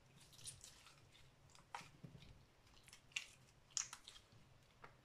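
Homemade glue slime being kneaded and squeezed in the hands, giving a few faint, scattered sticky squelches and small clicks.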